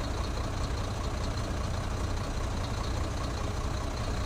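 Excavator's diesel engine running steadily at an even, low pitch, with no changes in speed.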